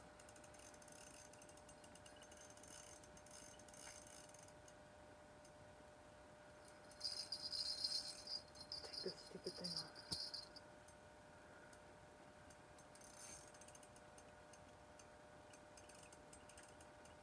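Fishing reel clicking and rattling for about three seconds in the middle, as line goes out or is wound in during a fight with a fish. Otherwise near silence with a faint steady hum.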